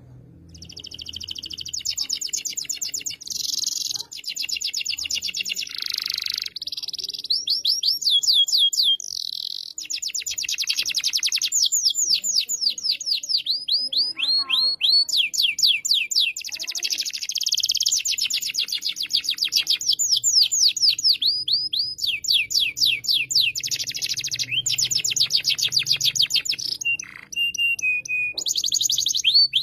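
Domestic canary singing continuously in long, fast trills of rapidly repeated high notes, switching from one trill to the next every second or two.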